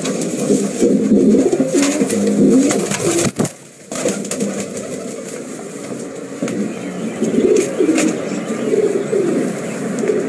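Pomeranian Pouter pigeons cooing in repeated low bouts, with scattered sharp clicks. The cooing breaks off briefly about three and a half seconds in, then resumes.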